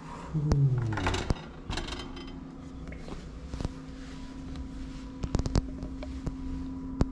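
A few sharp clicks and knocks, with a cluster of them about five seconds in, over a steady low hum.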